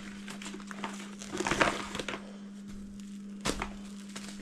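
Plastic cling wrap crinkling as a sheet is pulled from the roll and pressed around a ball of pie dough. It comes in irregular crackles, thickest a little over a second in, with one sharp crackle about three and a half seconds in.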